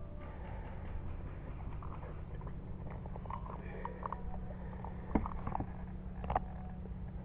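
Scattered small taps and scrapes, with two sharper knocks about five and six seconds in, over a steady low rumble: handling noise of an airsoft sniper rifle and gear against a wooden bunker wall.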